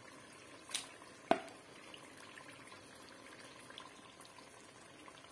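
Two sharp taps of a metal spoon, about half a second apart, the second one ringing briefly, over a faint bubbling of broth simmering in a kazan.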